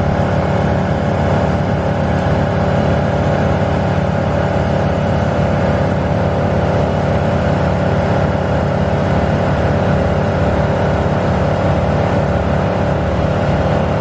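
Bucket truck's engine running at a steady speed, an even drone that holds its pitch without revving.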